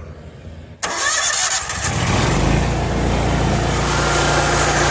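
Zero-turn riding mower's engine turned over by its starter, catching after about a second of cranking and then running steadily. The starter cranks again after being taken out and sprayed with WD-40.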